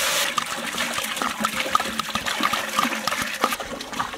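Water poured from a large plastic water jug into a big aluminium cooking pot, glugging irregularly a few times a second as it runs out. A loud hiss at the very start stops after a moment.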